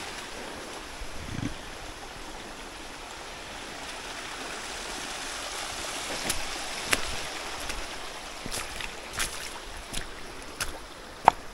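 Small woodland brook rushing and trickling over stones in a steady wash. From about halfway on, short knocks of footsteps on the stony, muddy path come through it, with one sharp click near the end.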